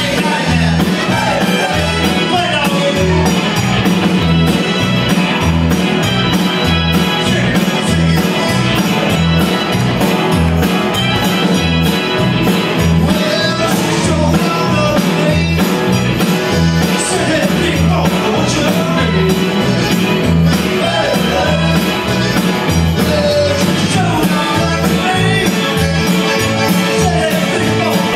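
Live Tex-Mex rock band playing an uptempo song with a steady driving beat: drums, electric bass, electric guitar, keyboard, button accordion and saxophone, with some singing.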